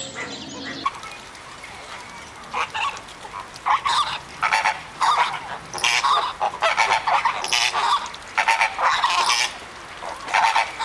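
A flock of flamingos honking: short, goose-like calls, scattered at first and then coming thick and overlapping from about four seconds in.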